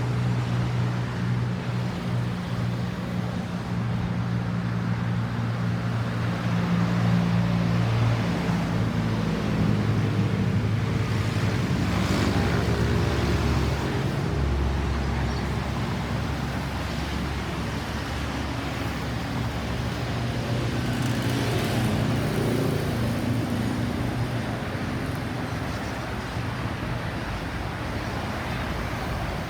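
Road traffic: a motor vehicle's engine running steadily under general road noise, its hum changing about eight seconds in. No siren is sounding.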